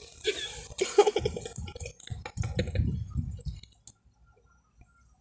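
Close-up eating sounds: chicken being pulled apart by hand and chewed, a run of quick wet clicks and smacks with a few low bumps, which stops about three and a half seconds in.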